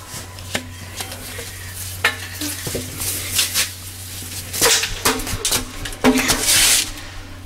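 Knocks and scrapes of a child climbing into a large pipe and crawling along it: a string of sharp knocks and rustling scrapes, with a longer, louder rasping scrape near the end.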